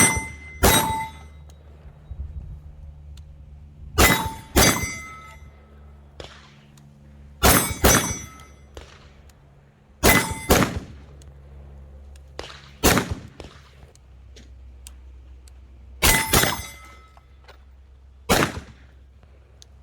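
Pistol fired in quick pairs about half a second apart, repeated every three seconds or so, with the hits ringing on steel targets.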